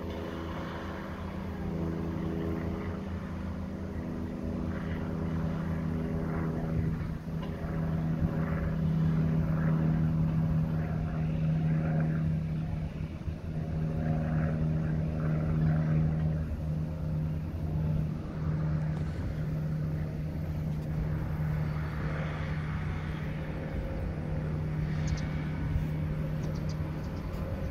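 Maintenance-of-way track machines running along a railway bridge, their engines giving a steady low drone that wavers a little past the middle.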